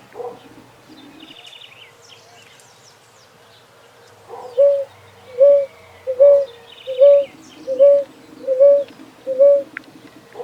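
Ground dove (rolinha) cooing: one coo at the very start, then after a pause a run of eight evenly spaced coos, a little under one a second. Faint chirps of other birds in the background.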